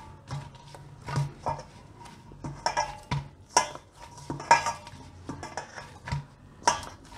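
Hands kneading maida dough in a stainless-steel bowl: irregular knocks and scrapes of the dough and hands against the steel, roughly once a second, several leaving the bowl ringing briefly.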